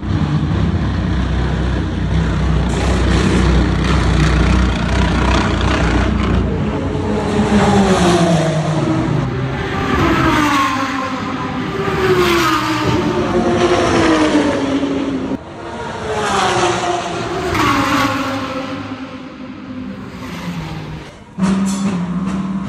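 GT3 race cars going by one after another, each engine note falling in pitch as the car passes, the level swelling and fading with every pass. Near the end it switches suddenly to a Lamborghini Huracán GT3's V10 idling steadily close up.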